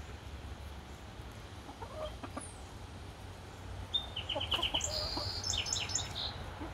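Backyard hens clucking softly and intermittently while they peck at food. About four seconds in, a quick run of high, rapid chirps joins the clucking.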